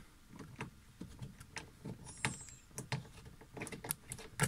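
Irregular light metallic clicks and taps from hand tools and fasteners being handled while unbolting car door hardware.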